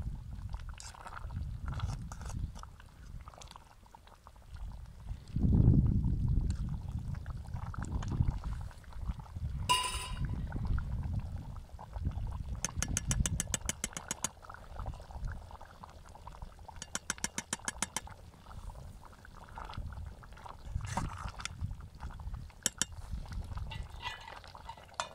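A metal ladle stirring a pot of stewing abgoosht over a wood fire, with one ringing clink against the pot and two runs of rapid clicking scrapes. A low rumble sits underneath, loudest about six seconds in.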